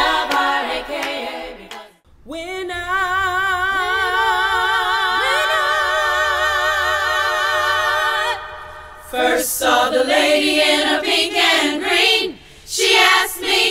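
A group of women singing a cappella. The line ends and the voices hold one long chord with vibrato for about six seconds; after a short pause the singing starts again.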